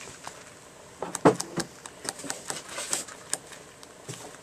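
Single-edge razor blade scraping the exposed copper contacts at the end of an LED tape light, a quick irregular run of short scratchy clicks starting about a second in, cleaning the copper to a shiny finish for good contact in the connector.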